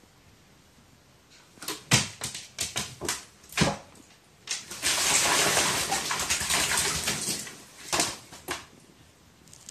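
A crow bathing in water: a few sharp splashes and dips, then about three seconds of continuous vigorous splashing as it flutters its wings in the water, and two more splashes near the end.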